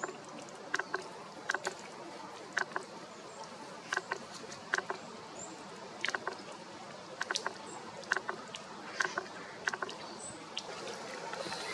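Irregular short clicks or taps, roughly one a second, over a steady outdoor background, with a few faint, very short high bird chirps.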